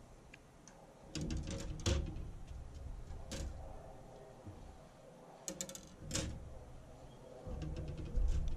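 Scattered sharp clicks and light knocks as the sections of a graphite fly rod are handled, pulled apart and set down on a glass table.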